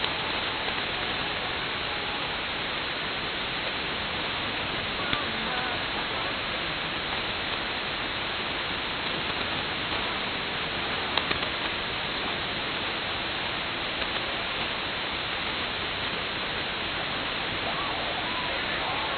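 Shortwave radio reception on 6925 kHz AM through a software-defined receiver: a steady static hiss from a weak 40-watt pirate broadcast, with the station's audio barely showing through the noise. A few sharp static crackles come through, the loudest about eleven seconds in.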